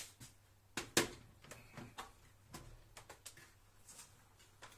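Hard plastic parts of a Varoma steaming attachment knocking and clattering as it is handled and set onto a food processor's mixing bowl: a scattering of short knocks, the loudest about a second in.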